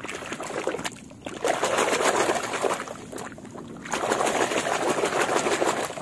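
Muddy water splashing and sloshing in a plastic basin as a hand scrubs and swishes plastic toy cars through it, in three spells with short lulls between.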